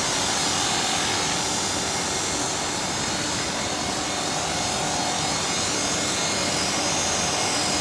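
Skyartec Mosquito electric RC helicopter in flight: the steady whine of its motor and main rotor, with the pitch wavering slightly now and then.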